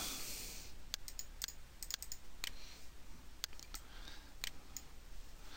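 About a dozen irregular, sharp clicks of a computer mouse and keyboard being worked, over a faint steady low hum.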